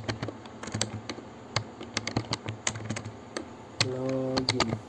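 Typing on a computer keyboard: irregular keystroke clicks as a line of code is entered. A short pitched hum sounds under the keystrokes for about a second near the end.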